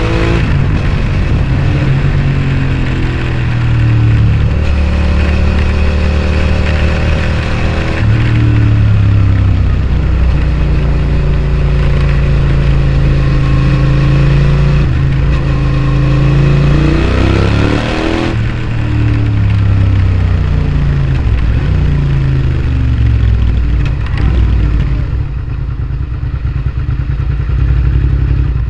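Suzuki SV650S's 645 cc V-twin breathing through a Scorpion exhaust while riding: the engine climbs in pitch through the gears with several shifts, then eases off as the bike slows near the end.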